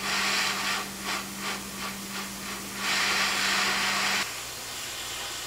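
Gravity-feed airbrush spraying paint in short spurts of hiss, with two longer blasts, one at the start and one about three seconds in. Under it an air compressor hums steadily and cuts out a little over four seconds in.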